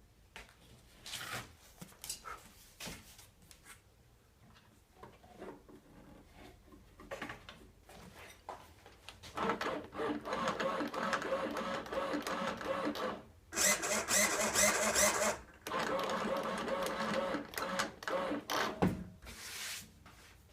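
Scattered clicks and knocks of handling, then a small electric motor whirring steadily in several spurts for about ten seconds, with brief stops between them.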